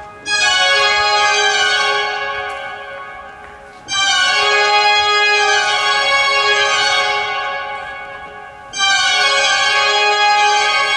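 Pipe organ of Saint-Eustache playing loud, full chords in a reverberant church. A new chord enters suddenly three times, at the start, about four seconds in and near nine seconds, and each one fades away over a few seconds.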